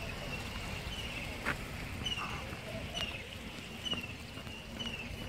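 A small bird chirping over and over in short falling notes, with a few sharp footsteps on paving about one and a half, three and four seconds in, over a steady outdoor background hum.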